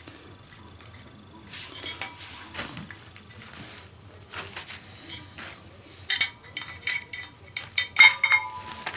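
Metal washing-machine parts, the bearings and drum spider shaft, clinking and knocking as they are handled and fitted together. There are scattered light clicks, then louder knocks with short metallic rings about six and eight seconds in.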